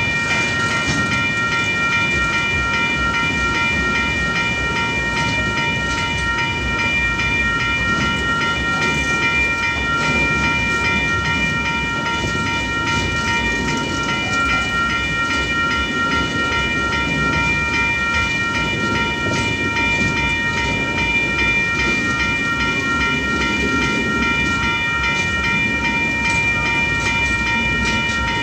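Level-crossing alarm bells ringing steadily over the rumble and clatter of a freight train's container wagons rolling past.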